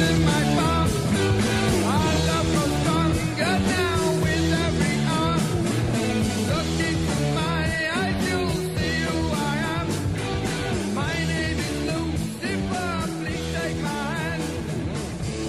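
Rock music with a steady bass line.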